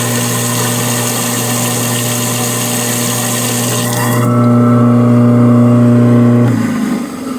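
Kitchen garbage disposal motor running freely with a steady hum, its jam of aquarium gravel cleared. A hiss over it stops about four seconds in. Near the end the motor is switched off and winds down.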